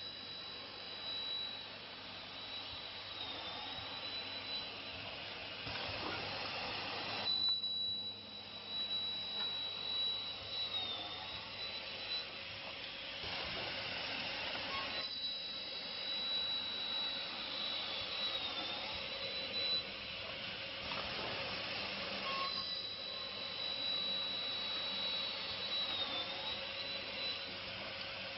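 MDTP-400 automatic aluminium cleat drilling, tapping, punching and cutting machine running through repeated work cycles. A steady high whine dips in pitch briefly about every seven and a half seconds, and a louder rushing noise rises for a second or two once in each cycle.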